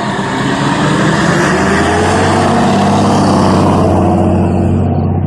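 A heavy road vehicle's engine going by close, its pitch climbing slightly as it builds up, then easing off near the end.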